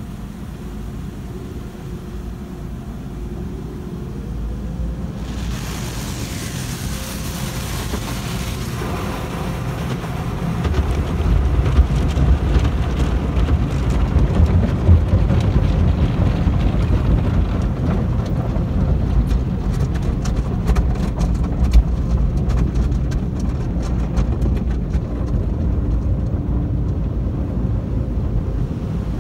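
Automatic car wash heard from inside the car: water and foam spraying over the windshield, with a steady low rumble of the wash machinery that grows louder about ten seconds in. A burst of hissing spray comes about six seconds in, and over the last ten seconds a rapid patter of small hits strikes the car.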